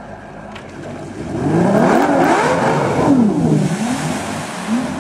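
Boat engine revving under hard throttle, its pitch swinging up and down a couple of times. It starts fairly quiet and gets much louder from about a second and a half in.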